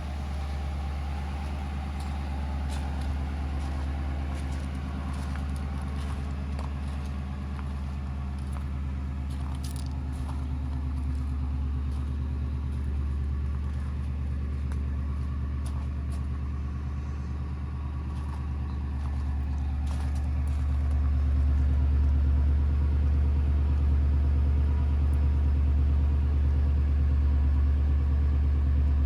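Ford Crown Victoria's 4.6-litre V8 engine running steadily, with a few faint scattered clicks. It gets louder about two-thirds of the way through.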